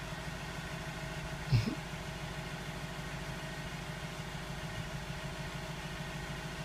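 Steady low mechanical hum of a running motor, evenly pulsing, with one brief sharp sound about one and a half seconds in.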